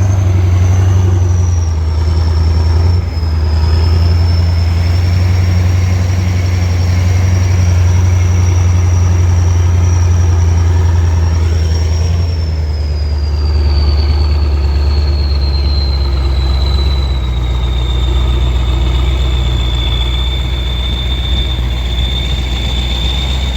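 Kirovets K-700 tractor's turbocharged diesel engine running with a loud, steady rumble, over which the turbocharger makes a thin high whistle. The whistle holds high for the first half, then slides down in pitch and settles lower toward the end.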